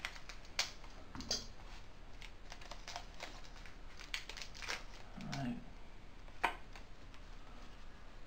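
A Pokémon trading card booster pack being opened and its cards handled: irregular light crinkles and clicks of the foil wrapper and card stock.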